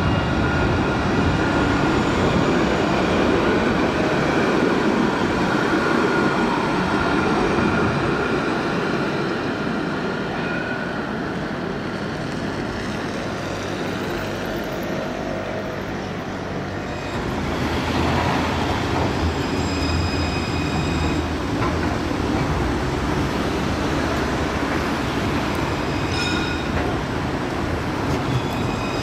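Alstom Citadis trams running on street track, a steady rolling noise with high, steady squeals from the wheels several times in the second half, as a tram rounds a curve.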